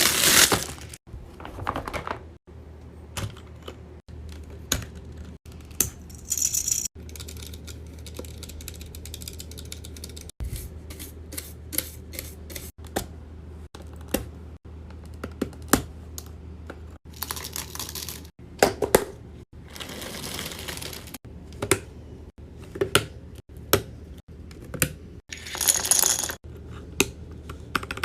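A run of sharp clicks, taps and clinks of small hard objects, chopped into short pieces by abrupt cuts, over a low steady hum.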